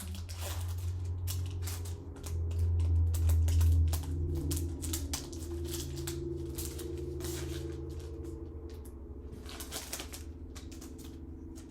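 Foil Pokémon booster-pack wrapper crinkling and being torn, with cards handled, in a quick run of sharp crackles. Under it runs a low steady hum that swells for a couple of seconds about two seconds in.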